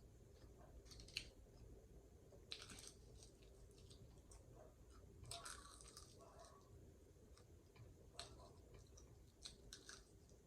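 Faint chewing with soft mouth clicks and a few short crunches spread unevenly over several seconds.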